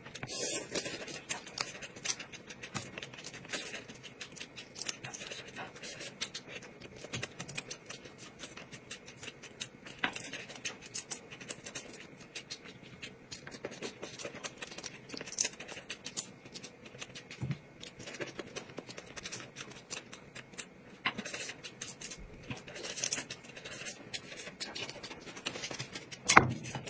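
Close-up eating sounds: food chewed and pulled apart by hand, with a dense run of small crackles and clicks and a sharper click near the end.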